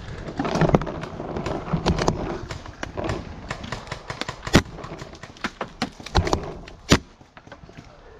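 Paintball gunfire: an irregular scatter of sharp pops and knocks, with two louder single cracks about two seconds apart in the second half.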